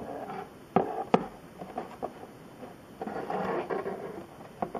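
A scratch-built model building being handled and turned on a workbench. Two sharp taps about a second in, a stretch of scraping and rubbing a few seconds in, and another tap near the end.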